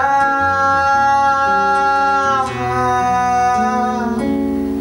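Male voice holding a long sung note on 'agonia' over acoustic guitar, sliding into a second held note that ends about four seconds in, leaving the guitar chord ringing and fading.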